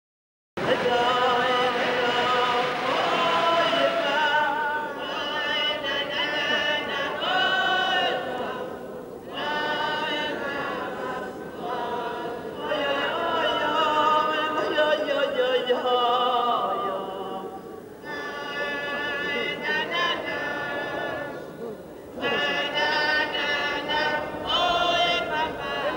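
Vocal music: singing in long, wavering phrases with short breaks between them, starting suddenly about half a second in after silence.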